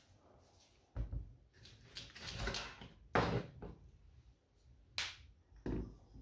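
A few separate knocks and clunks of household objects being handled and set down, with a short rustling swell in between; the loudest knock comes about three seconds in and a sharp click near five seconds.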